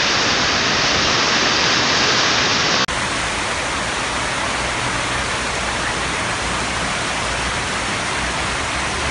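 Floodwater rushing down a concrete drainage channel in a steady loud rush. About three seconds in it cuts to a slightly quieter, steady wash of heavy rain and runoff on a flooded street.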